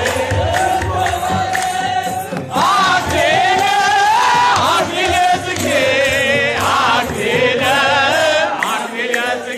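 A crowd of men singing an Ethiopian Orthodox mezmur together to a steady beat of kebero drum and hand-clapping. Higher wavering voices join about two and a half seconds in.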